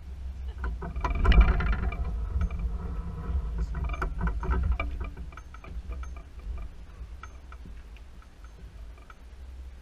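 Boat motor running at low speed while the boat comes alongside a dock, louder for a second or so about a second in, with a few knocks and clatter.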